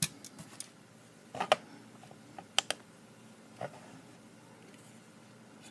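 A few light, separate clicks and taps of small objects being handled on a wooden board, as a digital pocket scale is set down on it.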